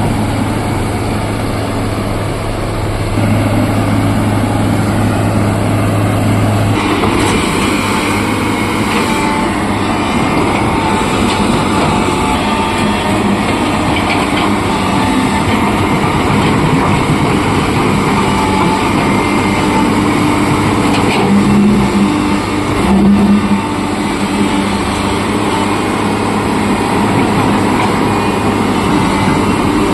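Hitachi hydraulic excavator's diesel engine running steadily. About seven seconds in the sound fills out as the machine works under load, and it surges louder twice a little past the two-thirds mark.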